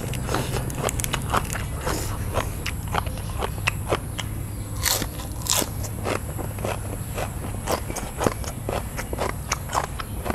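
A person chewing sweet sea snails (spotted babylon) with their dipping sauce, with many sharp, irregular crunching clicks from the mouth, several a second.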